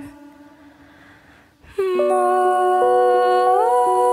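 Background music: a sung note fades into a short quiet gap, then held chords come in just under two seconds in and shift in pitch near the end.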